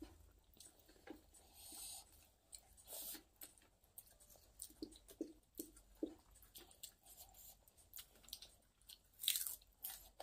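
A person chewing a mouthful of rice and small fish eaten by hand: quiet, irregular mouth clicks and smacks, with one louder noise about nine seconds in.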